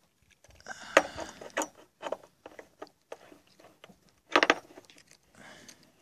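Handling noises of a metal probe and fittings on a solar water heater tank: irregular clicks, taps and light scrapes, with a louder clatter about four and a half seconds in.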